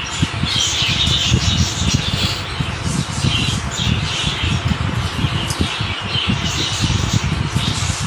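Budgerigars chattering and squawking continuously, over a low, uneven rumble.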